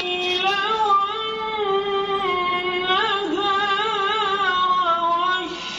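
Melodic Quranic recitation in a high voice: one long chanted line of held notes with a wavering ornament, with no instruments.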